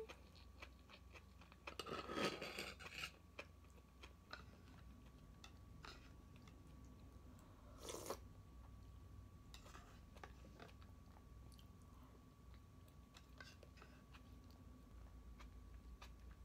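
Faint chewing of crisp raw vegetables, with small scattered crunches, and two louder short noises about two and eight seconds in.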